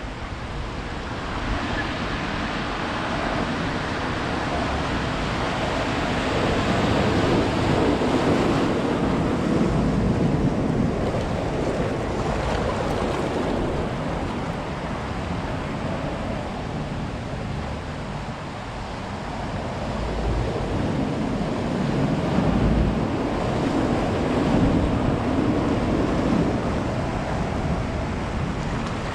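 Ocean surf on a beach: waves breaking and washing in as a steady rushing, swelling louder twice as larger waves come in.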